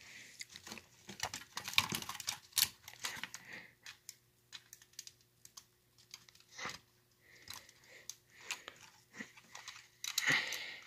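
Irregular clicks and taps of a plastic model steam locomotive and tender being handled and set onto model railroad track, with a louder clatter about ten seconds in. A faint steady hum runs underneath.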